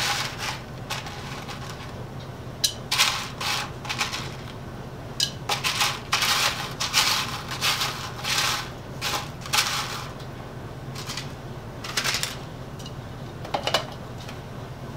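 Small chunks of chopped HDPE bottle caps clicking and rattling against each other and a plastic tray as they are stirred and picked through by hand, in irregular clusters, over a steady low hum.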